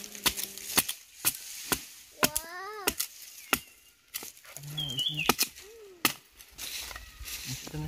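Knife chopping on a wooden board: irregular sharp knocks, about one or two a second. About two seconds in, a cat meows once, its pitch rising and then falling.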